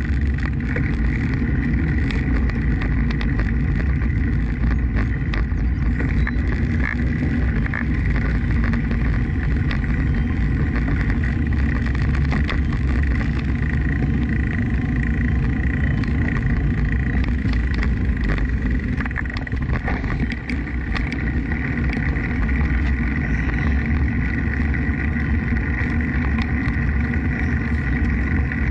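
Wind rushing over the microphone of a bicycle-mounted camera while riding, with steady tyre and road noise underneath. A faint, steady high whine runs through it.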